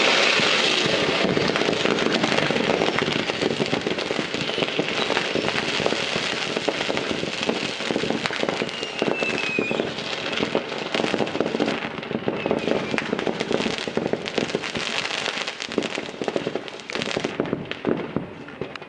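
A large mass of illegal fireworks detonated all at once by a bomb squad: a dense, continuous barrage of bangs and crackling that starts suddenly and thins slightly toward the end. A short whistle sounds about nine seconds in.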